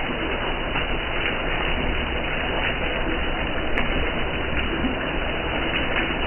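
Jackfruit curry simmering in a pan on a stove: a steady rushing noise with faint, irregular pops of bubbling.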